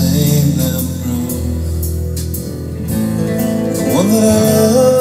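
A song with a singing voice over sustained instrumental backing, played back through North American Sound studio monitor loudspeakers. The voice slides up into a held note near the end.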